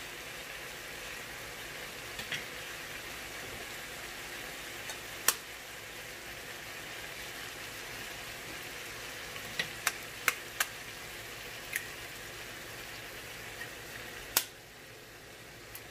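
Eggplant sizzling steadily in a frying pan, with scattered sharp clicks and taps, the loudest about fourteen seconds in. After that the sizzle drops to a quieter level.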